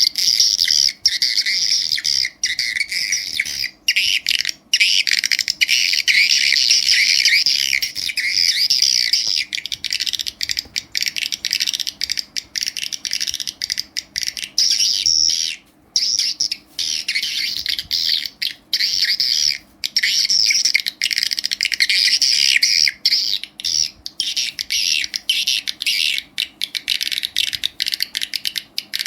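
Swiftlet calls played back through an amplifier: dense, high twittering chirps that run on with many brief gaps, the kind of lure sound used to draw swiftlets into a swiftlet house.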